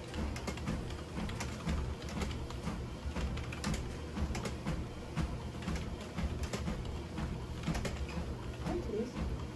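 Typing on a computer keyboard: rapid, irregular key clicks over a steady low background.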